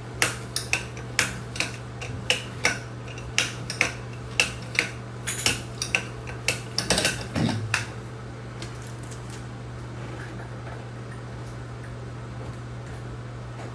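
Small metal trim parts of a shower valve clicking and clinking against each other as they are taken off, turned and handled, about one or two clicks a second; the clicks stop about eight seconds in, leaving a steady low hum.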